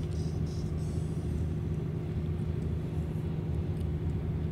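Steady low engine drone and road rumble inside a moving vehicle.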